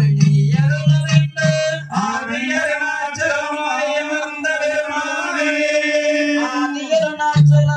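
Valli kummi folk song: singing over a rhythmic low beat. The beat drops away about two seconds in while the singer holds one long note, and it comes back near the end.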